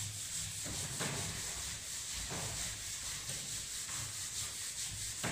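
Whiteboard eraser rubbing across a whiteboard in repeated wiping strokes, a soft hiss.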